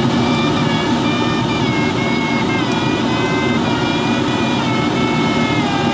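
Airflow rushing past the canopy of an ASW-15b sailplane in flight, with an electronic audio variometer holding a continuous tone that steps slightly up and down in pitch as the climb or sink rate changes.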